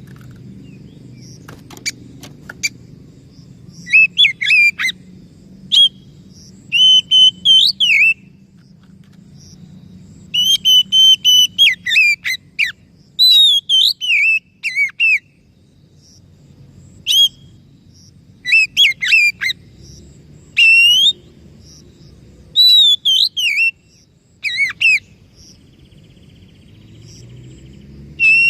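Oriental magpie-robin (kacer) singing: loud, varied whistled phrases with quick up-and-down glides, delivered in bursts separated by short pauses.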